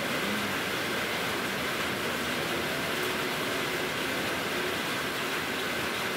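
Steady rain falling on the shelter roof, an even hiss with no breaks.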